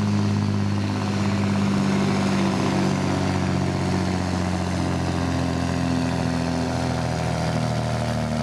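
Scania P92 truck's diesel engine running hard under full load as it drags a pulling sled, a steady deep engine note throughout.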